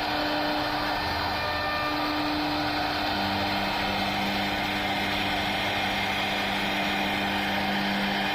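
CNC router running steadily while carving a wooden door panel: a constant whine over an even hiss, with a second, lower steady tone coming in about three seconds in.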